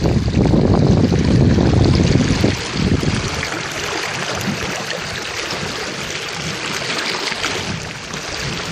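Water rushing and hissing past the hull of a small wooden sailing dinghy under way, with its foaming wake. For the first two and a half seconds wind buffets the microphone with a heavy rumble, which then drops away and leaves the hiss of the water.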